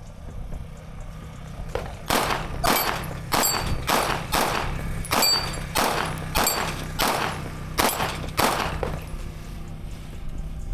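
A 9mm Fusion Firearms XF-Pro pistol with a ported barrel fired in a rapid string of about a dozen shots, roughly one every half second. The shots start about two seconds in and stop a couple of seconds before the end.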